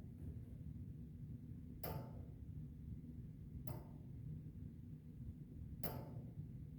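Pedestrian crossing signal ticking slowly while the crossing is at red, three sharp clicks about two seconds apart over a low background rumble.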